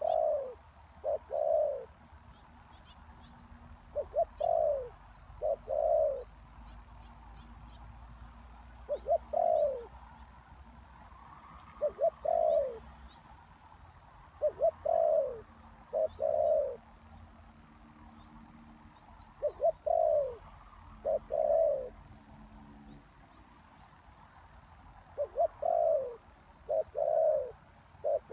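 Spotted dove cooing. Each phrase is one or two quick short notes followed by two longer coos, repeated about every four to five seconds, seven times.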